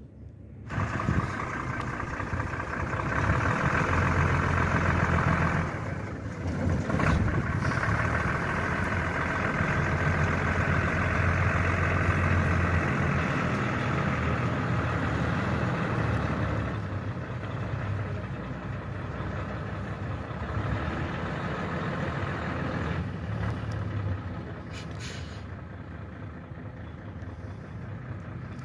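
Medium-duty truck's diesel engine running as the truck drives off along a dirt track, a steady low engine note that is loud at first and fades over the last several seconds as the truck moves away.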